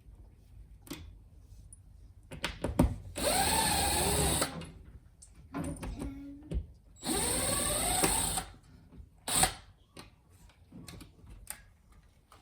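Power drill run in two short bursts of about a second each, its motor pitch rising and then sagging as the bit loads up, with scattered clicks and knocks between the runs.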